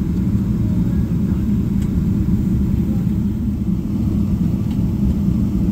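Steady low rumble heard inside the cabin of a Boeing 777-300ER taxiing, its engines at low taxi power.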